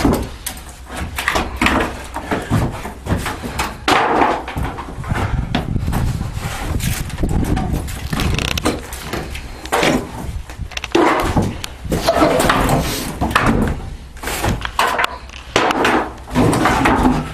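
Wooden wall boards being knocked off a building's studs: repeated banging and cracking of wood, blow after blow at an irregular pace.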